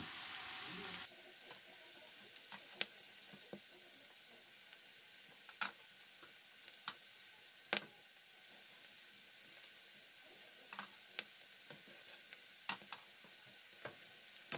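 Marinated pork chops and pork belly sizzling on an electric indoor grill: a steady hiss, louder for the first second and faint after, with sharp pops scattered through it.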